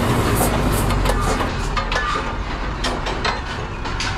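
Scania P250 skip-loader lorry driving past and moving off, its diesel engine and tyres a steady low rumble with scattered clicks and rattles, easing a little near the end.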